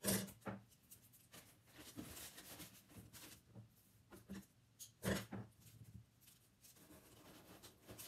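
Yellow paper tape pulled off its roll and torn into strips, then pressed onto the inside of a cardboard box. The loudest sounds are two quick bursts of ripping, at the start and about five seconds in, with soft rustling and handling between them.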